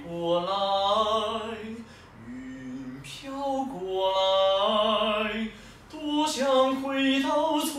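A man singing a Chinese opera aria in full operatic voice: three phrases of long held notes with vibrato, with short breaths about two seconds in and near the end.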